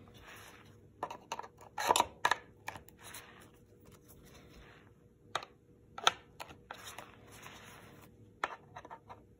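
Handling noise from a Team Wendy helmet being worked on with a screwdriver: scattered sharp clicks and taps of the plastic rail, shell and fittings, the loudest about two seconds in and again about six seconds in, with soft rustling of the nylon straps and pads between.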